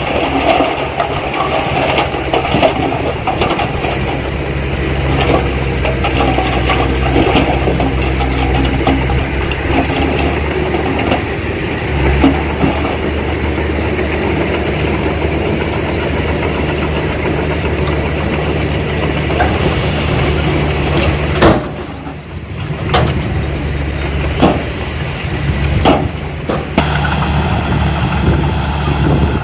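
Diesel engine of heavy earthmoving machinery running steadily, with scattered clanks and knocks. The engine note strengthens about halfway through. Near two-thirds of the way through, the engine briefly drops away under a few sharp knocks.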